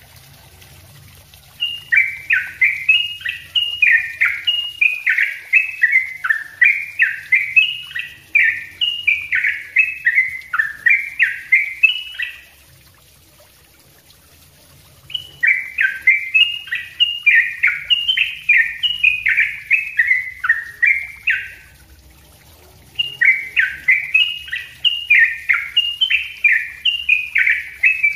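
Yellow-vented bulbul singing a fast, tightly packed run of short notes, each sliding down in pitch, about two a second. It sings in three long bouts broken by two short pauses.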